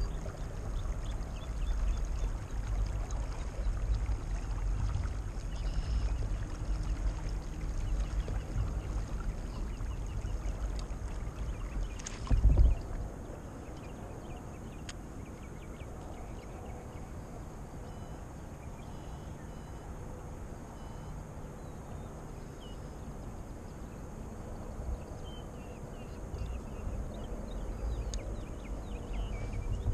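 Kayak being paddled on calm water: uneven swishing and dripping of water around the paddle and hull, with one sharp knock on the kayak about twelve seconds in, after which it goes quieter for a while before the paddling noise picks up again near the end.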